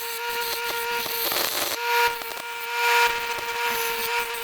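Electric grinder running at full speed, its motor giving a steady high whine, while it grinds a steel hinge piece with a harsh scraping noise that swells and eases as the piece is pressed on.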